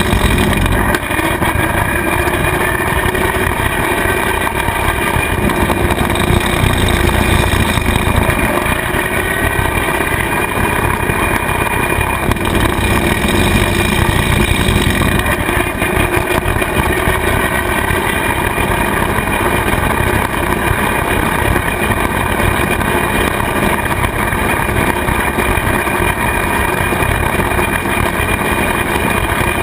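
Kubota tractor's diesel engine running steadily, driving a PTO rotary cutter (bush hog) that is mowing grass, with a steady whine over the engine's rumble.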